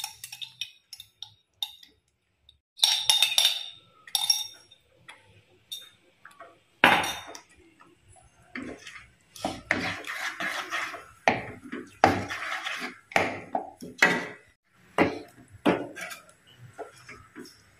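Steel ladle stirring thick curry masala in a pan, scraping and clinking against the pan in irregular strokes as ginger-garlic paste is mixed in.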